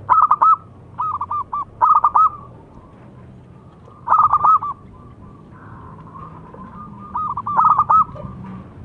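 Zebra dove (perkutut) cooing in five short bursts of quick, rippling staccato notes, a second to three seconds apart.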